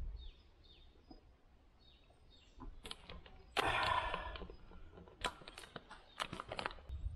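Faint bird chirps, then about three and a half seconds in a loud rustling and crinkling as things are handled, followed by a run of small clicks and knocks while a backpack is rummaged through.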